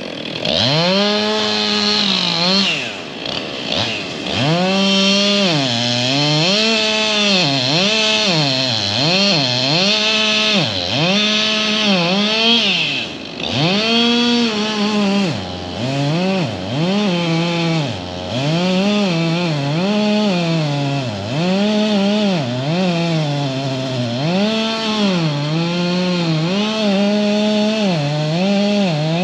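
Chainsaw cutting wood, the engine's pitch dropping under load and climbing back again and again as it works through the cut.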